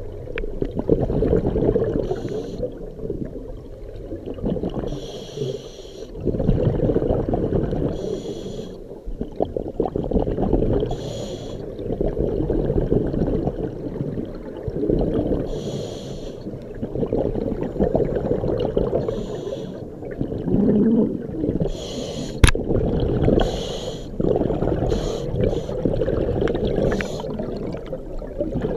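A diver breathing through a scuba regulator underwater: short hissing inhalations alternate with longer, low bubbling rumbles of exhaled air, one breath every four to five seconds. A single sharp click about three-quarters of the way through.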